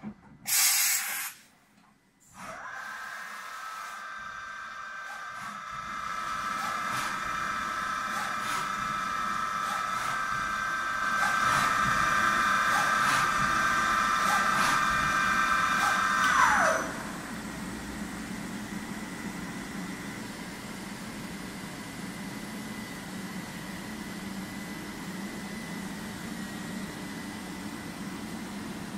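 A short burst of compressed-air hiss about a second in, then the Kondia B-1050 machining centre's spindle running with a steady whine of several tones, getting louder partway through. About halfway through the whine drops quickly in pitch and stops as the spindle brakes, leaving a lower steady machine hum.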